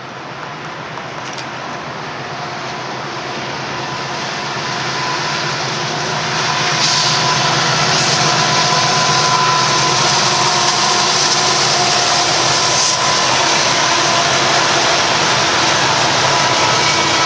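Union Pacific freight train with diesel locomotives approaching and passing, growing steadily louder over the first six or seven seconds. It then holds at a steady rumble as the double-stack container cars roll by on the rails.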